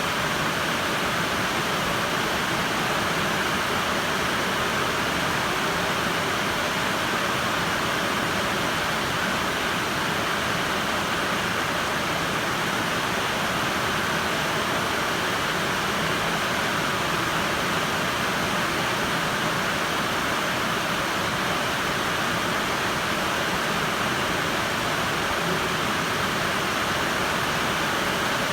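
Steady rain heard from inside a building: an even, unbroken hiss that does not change.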